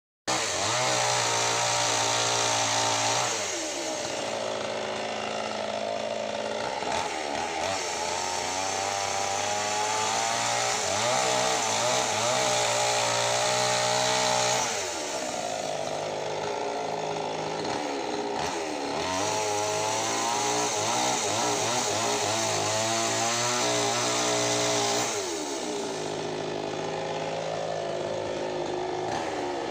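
Two-stroke petrol chainsaw running at high speed through teak timber in three long stretches, each ending as the engine speed falls away, with lower, wavering engine speed between them.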